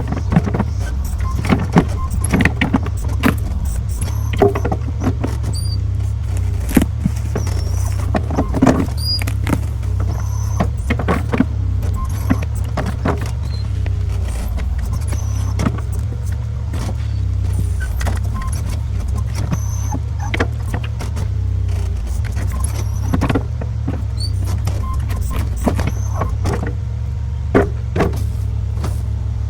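Small New Holland skid steer's engine running steadily under work, with frequent sharp clanks and knocks from the machine and its attachment as it digs at a tree stump.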